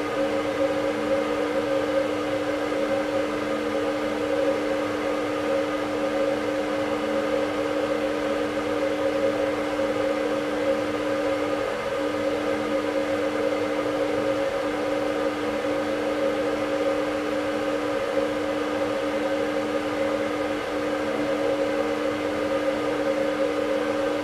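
Fluorescent ceiling light humming steadily, with a few brief breaks in the hum in the second half as the tube flickers on and off. Its ends glowing orange while the tube stays dark are the typical sign of a failing tube or starter.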